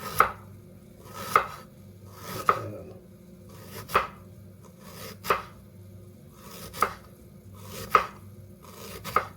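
Kitchen knife slicing peeled ginger thinly, one cut about every second, eight in all, each ending in a sharp knock of the blade on the board.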